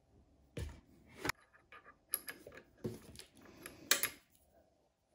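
Milwaukee M18 Fuel circular saw being handled and set down on cardboard: dull thumps, rustling and several sharp plastic clicks. The loudest click comes about four seconds in.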